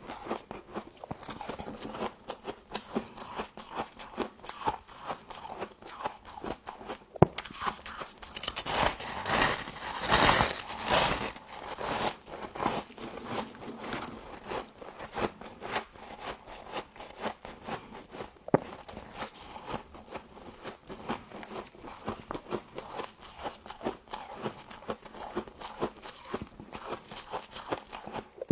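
Close-up biting and chewing of frost grown with a humidifier: a steady run of crisp crunches, with a louder stretch of crunching about nine to twelve seconds in.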